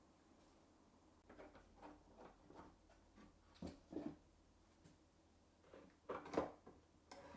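Light knocks and clicks from hands handling a wooden crosscut jig with aluminium guide rails: scattered short taps that start about a second in, with the loudest knock about six seconds in.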